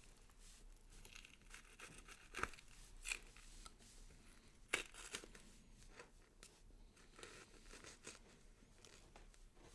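Quiet tearing and crackling sound effect with a few sharp snaps, about two and a half, three and five seconds in: a horror skin-cutting gore effect.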